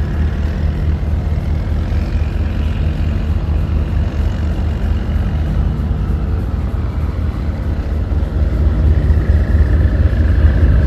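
Motorboat engine running steadily with a low, even hum, getting somewhat louder near the end.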